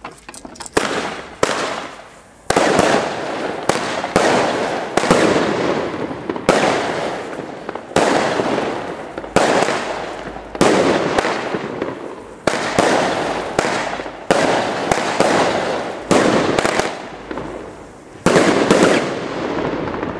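Legend Fireworks 'Heavy Legend' multi-shot cake firing shot after shot, its colour bursts alternating with salute reports. The sharp bangs come about one or two a second, each trailing off in a rumble.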